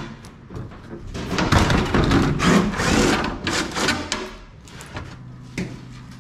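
DeWalt cordless drill-driver running for a few seconds, backing fasteners out of a race car's body panel, followed by a single sharp knock near the end.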